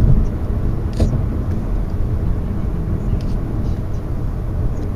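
Road noise inside a moving car's cabin at freeway speed: a steady low drone of tyres and engine.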